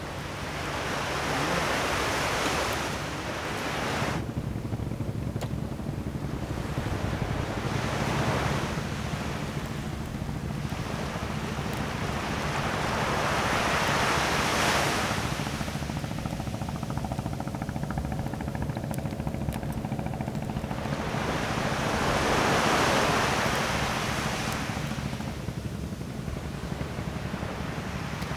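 Surf washing onto a sandy beach, swelling and fading four times, about every six to eight seconds.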